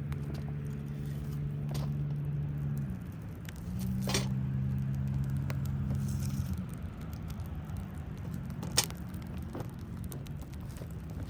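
Steady low hum of a car engine that drops in pitch and fades out about three seconds in, comes back for another three seconds, then fades again, with a crackling wood fire giving a few sharp pops, the loudest one near the end.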